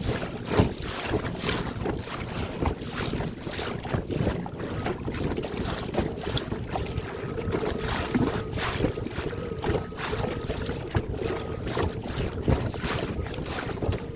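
Wind buffeting the microphone in uneven gusts, with small wind-driven waves lapping at a boat.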